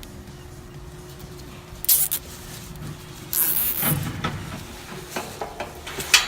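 Plastic zip ties being pulled tight through their heads: two quick ratcheting zips, the second one longer, followed by a few light clicks of handling.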